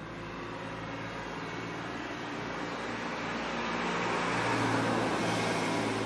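A road vehicle passing, its engine and tyre noise swelling steadily to a peak about five seconds in.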